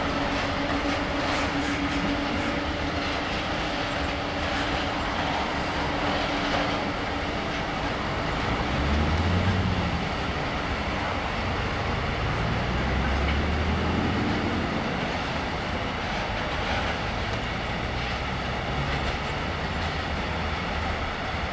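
Container freight train wagons rolling past at speed: steady running noise of steel wheels on the rails with some clatter. A low hum fades out about five seconds in.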